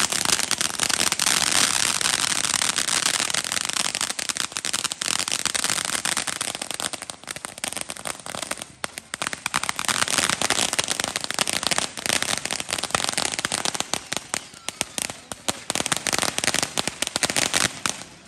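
Firecrackers going off in a fast, unbroken run of pops and crackles, easing briefly around the middle and stopping abruptly at the end.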